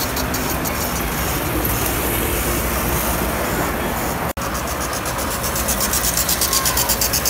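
Standard gauge tinplate toy trains running on three-rail track, their wheels ticking rapidly and regularly over the track joints over a steady running rumble. The sound breaks off for an instant about four seconds in, then the ticking comes back louder.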